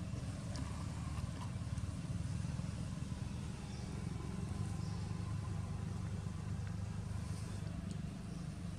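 Steady low rumble of background noise, with a few faint high ticks.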